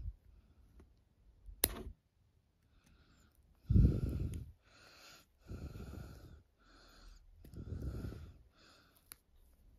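A person breathing heavily close to the microphone: about five noisy exhales from about four seconds in, the first the loudest. A single sharp click comes shortly before two seconds in.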